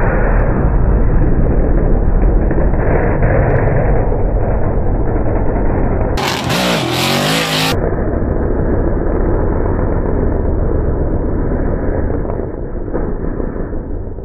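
Two drift cars sliding past in tandem, engines at high revs with tyre noise. There is a falling engine note about six seconds in, and the sound fades near the end as the cars move away.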